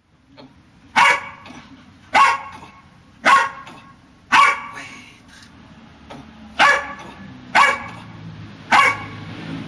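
Dog barking seven times, about a second apart, with a two-second pause after the fourth bark.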